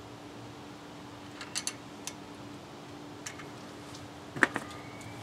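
Small metal hand tools, a box-end wrench and a flathead screwdriver, clicking and clinking against a rocker-arm adjuster and its locknut on a Honda D-series valvetrain. There are a few scattered light clicks, and the loudest clink comes near the end.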